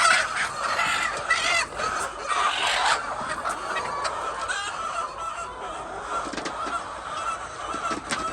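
A flock of laying hens clucking and calling: a steady din of many birds at once, with several louder calls in the first three seconds.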